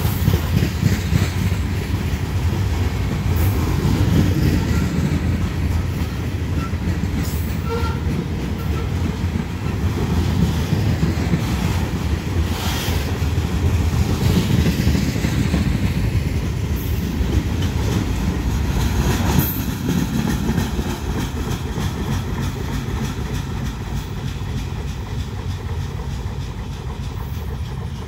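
Freight train of covered hopper cars rolling past close by: a steady rumble of wheels on rail with clickety-clack over the joints and a few sharp clanks. The sound eases off over the last several seconds as the end of the train passes and rolls away.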